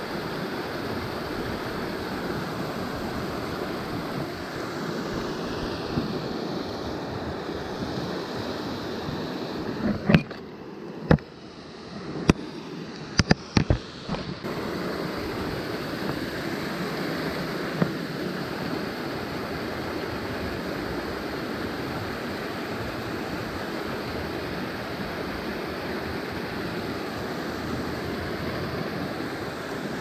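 Steady rush of creek water spilling over a stone weir. About ten seconds in, the rush dips for a few seconds and a handful of sharp clicks and knocks are the loudest sounds.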